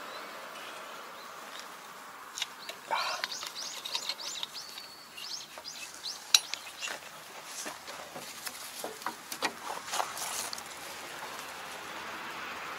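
Irregular metal clinks and knocks, with one sharp click about six seconds in, as a gloved hand works at the gearbox of a Kobashi rotary tiller, trying to move a part that is stuck. Birds chirp a few seconds in.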